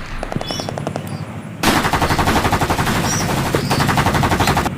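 Toy gun's electronic machine-gun sound effect. A rapid burst of gunfire starts about a second and a half in and keeps going at a steady rate.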